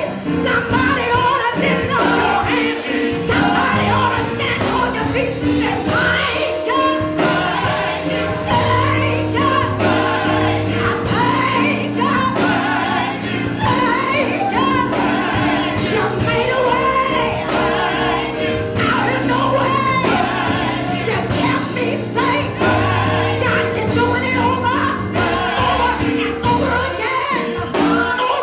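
Small gospel choir singing, led by a woman on a microphone, over accompaniment with held low notes.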